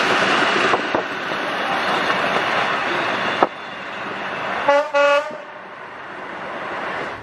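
Rushing running noise of wheels and wind from a moving train, which drops off abruptly about halfway. Just after, a train horn gives two short toots.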